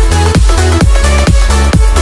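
Loud electronic dance music: a steady, fast kick-drum beat of about four hits a second over sustained bass and synth notes.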